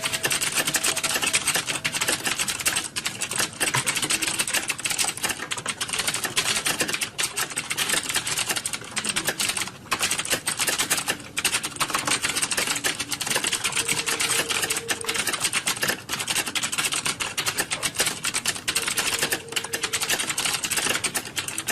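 Rapid, continuous typing on a computer keyboard, a dense run of key clicks with brief pauses about ten seconds in.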